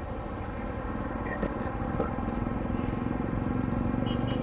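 Motorcycle engine running steadily while riding, picked up close by an action camera's external mic. There are a couple of sharp clicks about one and a half and two seconds in, and the engine grows a little louder near the end.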